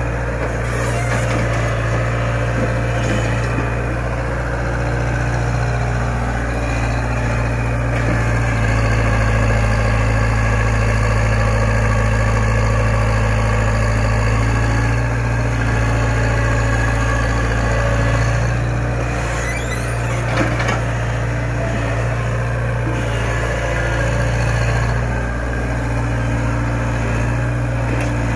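Tata Hitachi EX70 hydraulic excavator's diesel engine running steadily while it digs, with a brief knock about two-thirds of the way through.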